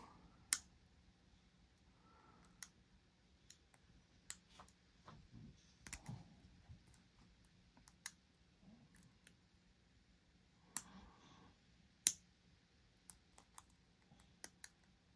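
Light, irregular metallic clicks and ticks from a dimple pick and tension wrench working the pins of a dimple lock. The pick is being felt across the pins, with a few sharper clicks among fainter ones, over a faint steady low hum.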